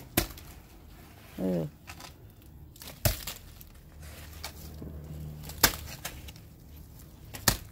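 Hoe chopping into soil: four sharp strikes about two to three seconds apart, with soil crumbling and scraping between them.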